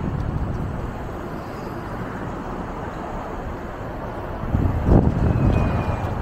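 Wind buffeting the microphone of a camera on a moving bicycle, over a steady hum of city street traffic. The wind gusts louder about four and a half seconds in.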